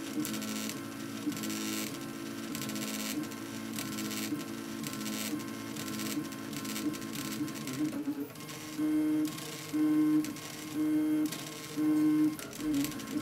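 Stepper motors of a RepRap Mendel 3D printer whining in pitched tones as they drive the print head and bed through fast moves at a 100 mm/s feed rate. From about eight seconds in, the tones turn louder and pulse about once a second as the moves repeat.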